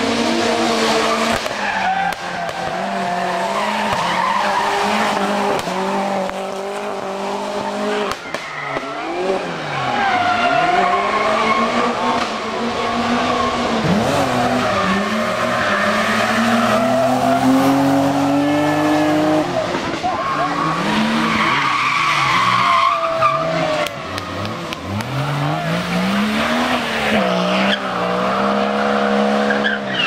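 BMW 3 Series drift cars sliding through hairpins one after another, engines revving hard and repeatedly falling and climbing again as the drivers work the throttle, with tyres squealing and scrubbing through the slides.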